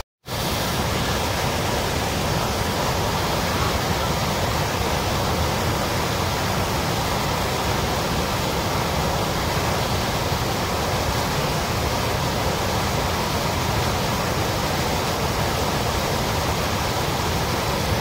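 Floodwater pouring over a river weir: a steady, heavy rush of churning white water, which cuts out for a moment at the very start. The rush sounds stronger than usual, a sign the speaker reads as the flood current coming faster.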